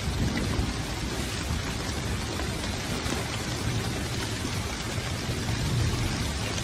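Hail and rain pelting down steadily on the ground and trees in a strong hailstorm, a dense even patter with a low rumble underneath.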